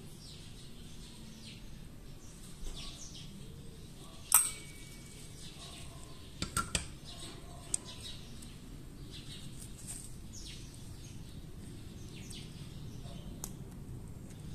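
Small pistol parts being handled on a workbench, giving a few sharp metallic clicks and taps as parts are set down and dropped into a steel magnetic parts tray; the loudest click comes about four seconds in, with a quick cluster a couple of seconds later. Faint bird chirps sound in the background.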